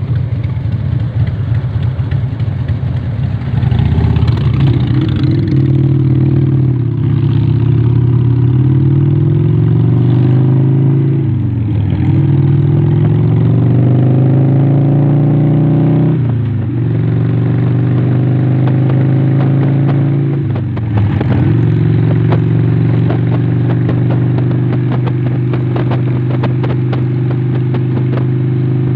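Motorcycle engine idling, then pulling away and accelerating through the gears: the pitch climbs and drops sharply at three gear changes, then settles into a steady cruise.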